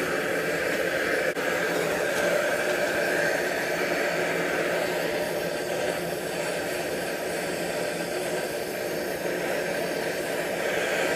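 Bernzomatic TS8000 MAPP gas torch burning with a steady hiss, its flame blowing into a small fire-brick forge.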